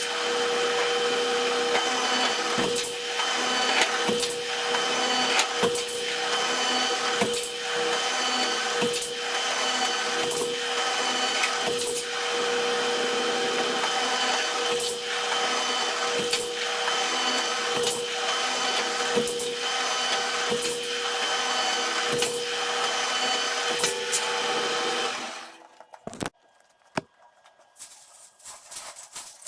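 Motor-driven sheet-metal roll former running steadily with a steady hum and a regular clack a little more than once a second, forming drive cleats from duct metal. It shuts off about 25 seconds in, leaving a few separate knocks of metal being handled.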